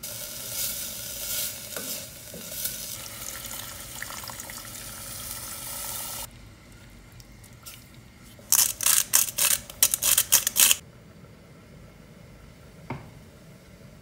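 Chopped onion sizzling in a stainless steel pot for about six seconds, cutting off abruptly. Then a quick run of loud scraping knocks as a spoon stirs against the pot, and a single knock near the end.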